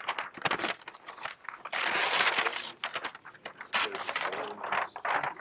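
A large sheet of stiff brown paper being handled and folded close to the microphone: a run of sharp crackles and rustles, with a longer, denser rustle about two seconds in.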